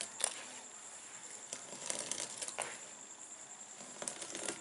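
Faint wet splats and squelches of a hand mixing and lifting thick ground rice-and-urad appam batter in a metal pot, a handful of soft splats spaced through it.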